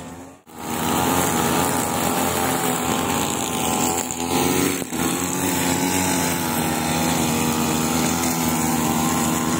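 Backpack brush cutter's small engine running steadily, its pitch wavering slightly, starting about half a second in.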